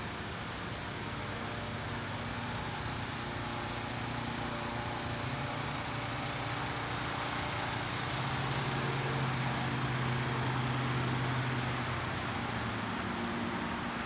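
Distant motor traffic: a steady hiss and low rumble, with a low engine hum that swells louder about eight seconds in and eases off again near the end.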